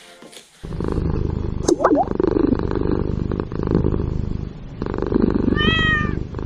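Domestic cat purring steadily, starting about half a second in and pausing briefly for breath now and then. Two short meows ride over the purr: a rising one about two seconds in and another near the end.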